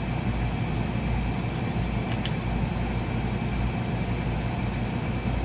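Steady low mechanical hum of a running machine, with a faint thin high whine over it and two faint light clicks about two and four and a half seconds in.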